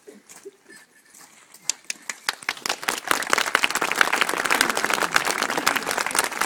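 Audience applause: a few scattered claps about two seconds in quickly build into steady clapping from a crowd.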